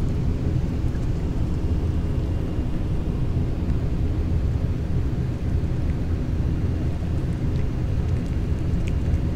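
Steady low rumble of wind buffeting the microphone outdoors, with a few faint crunches near the end from a cat chewing dry kibble.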